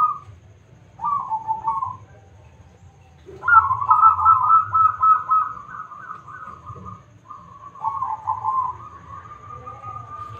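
Zebra dove (perkutut) cooing. There are short phrases at the start and about a second in, a long run of quick stuttering notes from about three and a half to seven seconds, and another phrase near eight seconds. A thin steady tone runs behind the calls in the second half.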